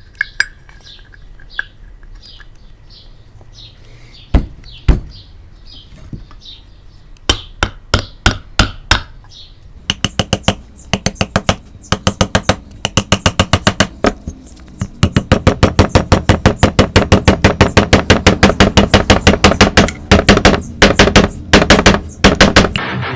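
Hammer blows, a few single strikes at first, then a fast, steady run of about five strikes a second through the second half. Faint bird chirps underneath at the start.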